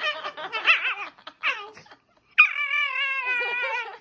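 A dog whining and howling. First come several short, wavering whines, then after a brief pause one long howl that slides slightly downward.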